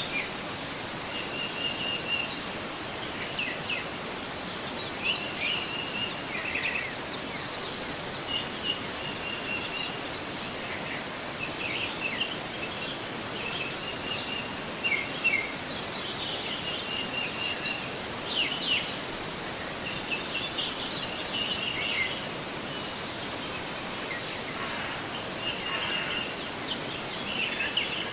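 Steady rush of a forest river's flowing water, with birds calling and chirping repeatedly over it.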